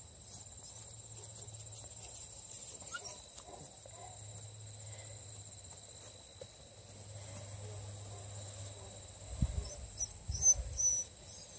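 Steady high-pitched chorus of crickets, with faint rustling as puppies chew on plush toys. A few low bumps near the end.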